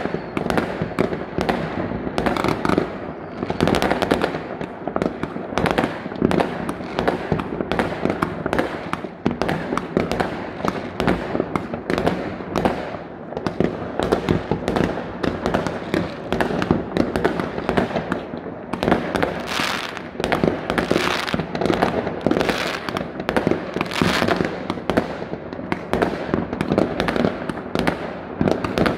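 Many consumer fireworks going off at once, rockets and firecrackers, making a dense, unbroken run of overlapping bangs and crackles.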